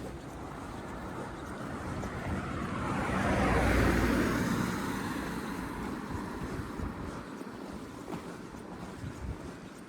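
A motor vehicle passing close by on the street: its tyre and engine noise swells to a peak about four seconds in, then fades away.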